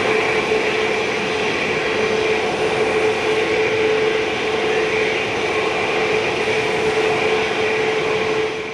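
Jet airliner engines running with a steady whining drone: a low hum tone and a higher whine over broad jet noise, easing off near the end.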